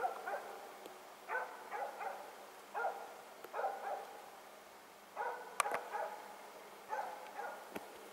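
Norwegian elkhound barking in quick runs of two or three barks, repeated about every second and a half: the steady baying of a loose hunting dog holding a moose at bay. There is a sharp click midway and another near the end.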